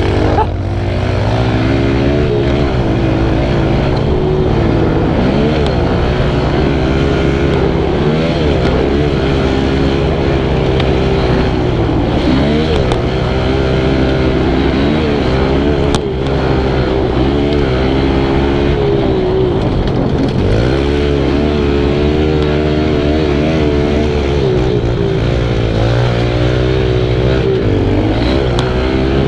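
Kawasaki KLX110's small four-stroke single-cylinder engine revving up and falling back again and again under hard throttle on a motocross track, the pitch climbing and dropping through the gears. A single sharp knock comes about halfway through.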